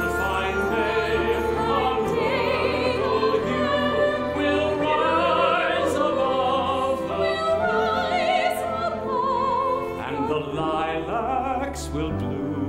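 A classically trained voice sings with wide vibrato over orchestral accompaniment. Near the end the voice stops and the orchestra carries on with a low held note.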